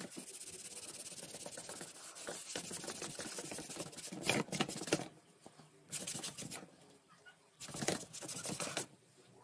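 Scratchy rubbing and scrubbing over the pastel painting's surface as the pastel is worked back: a long spell of fine, rapid scratching, then two shorter spells after brief pauses.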